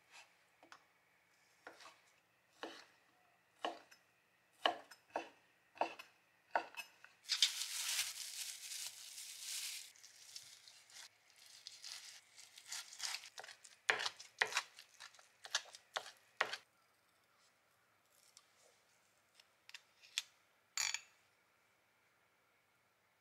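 Kitchen knife cutting meat on a cutting board: separate knocks of the blade on the board about a second apart, a few seconds of continuous noise, then a quicker run of chopping strokes as pork is minced. Near the end, a single clink on a glass bowl.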